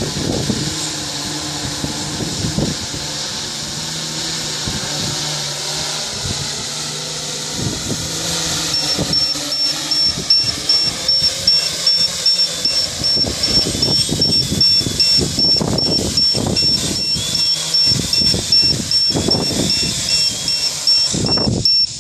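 Home-built 700 mm quadcopter's motors and propellers buzzing as it hovers and comes down to land. A steady high whine sets in about nine seconds in, and in the second half gusts of strong wind buffet the microphone in short bursts.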